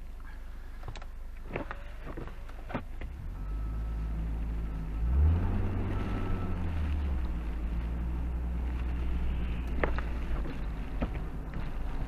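Car engine and road noise while driving, the engine note rising and getting louder about five seconds in as the car accelerates. A few sharp clicks in the first three seconds and one near ten seconds.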